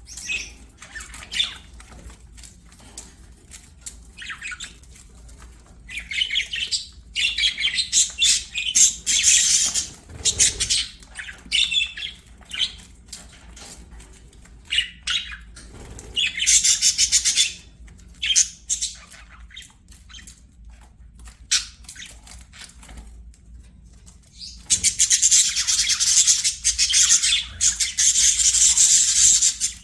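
Budgerigars chirping and warbling in bursts of busy, high-pitched chatter, with short single chirps in between.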